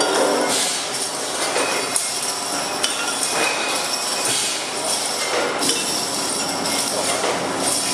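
Bottling line running: glass bottles clinking against each other on the conveyor, with the steady mechanical clatter of a rotary crown capper.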